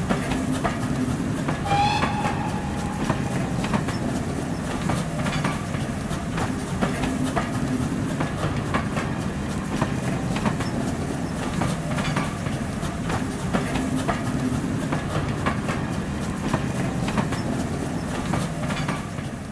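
Train running on jointed track: a steady rumble with repeated clicks of wheels over the rail joints, and a short whistle about two seconds in.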